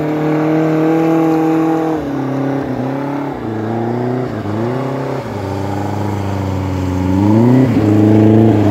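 Snowmobile engine running close by, its revs dipping and climbing several times with the throttle, then rising and growing louder near the end as a sled pulls in.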